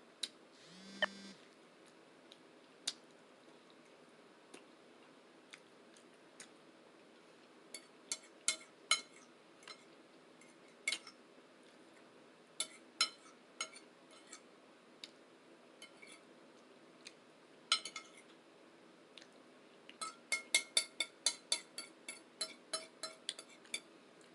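Close-up eating sounds: scattered sharp clicks and smacks of chewing, thickening near the end into a quick run of about four a second. About a second in there is a short, low, slightly rising vocal sound.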